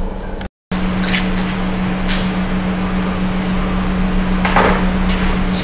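A steady low machine hum over a hiss of noise. It drops out completely for a moment about half a second in, and a few faint clicks and rustles sound over it.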